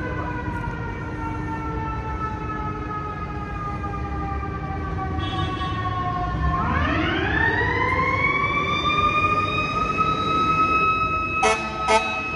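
Fire engine's mechanical siren slowly winding down in pitch, then spinning back up sharply about halfway through and holding a steady high wail. Near the end come two short horn blasts, under low street-traffic rumble.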